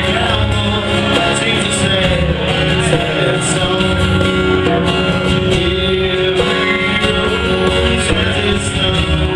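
Live band playing, guitars to the fore, with cymbal hits recurring through the passage.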